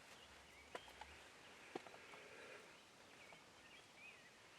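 Near silence outdoors, with faint, short bird chirps in the second half and two or three soft clicks in the first couple of seconds.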